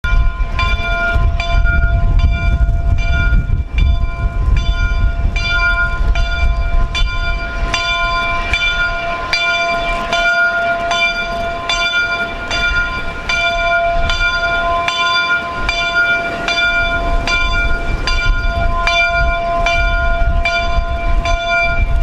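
The front-mounted bell of LNER A4 steam locomotive 60010 Dominion of Canada ringing steadily, struck about twice a second, each stroke ringing on so the tone never dies away. A low rumble lies underneath.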